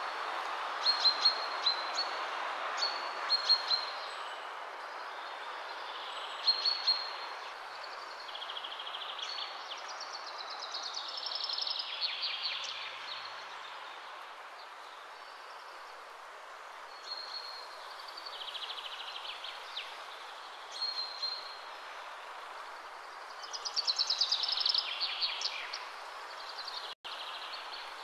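Hot oil sizzling steadily as strips of dough deep-fry in a wok, with birds chirping in short bursts of two or three high notes and a longer twittering run near the end.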